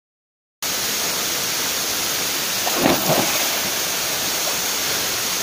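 Steady rush of a waterfall, starting abruptly about half a second in, with a brief louder sound near the middle.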